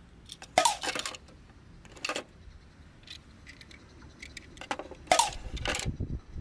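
Small die-cast toy cars clicking and clinking against the plastic shelves of a toy car-carrier truck as they are handled and slid into their slots. Several sharp separate clicks, two of them with a brief ringing clink, about half a second in and about five seconds in.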